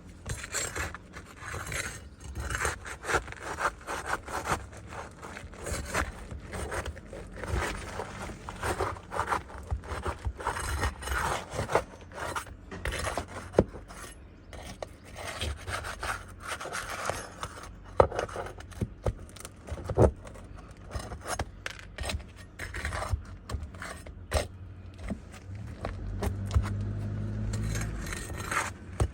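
Irregular scraping and rubbing against asphalt roof shingles as a damaged shingle is worked loose and pulled out, with a few sharp knocks. A low steady hum comes in near the end.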